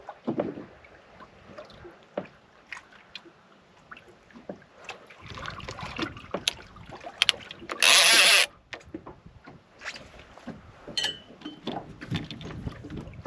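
Scattered knocks and clicks of gear being handled aboard a small fishing boat, over faint water noise. About eight seconds in comes a loud rushing hiss lasting about half a second.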